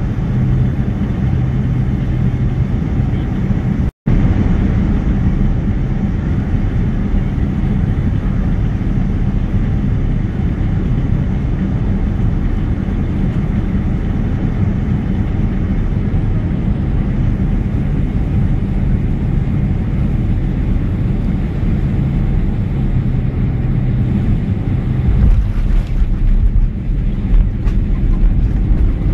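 Boeing 767 cabin noise on final approach: a steady jet-engine and airflow rush with a low hum, briefly cutting out about four seconds in. About 25 seconds in, a deeper, bumpy rumble sets in as the wheels touch down and the airliner rolls along the runway.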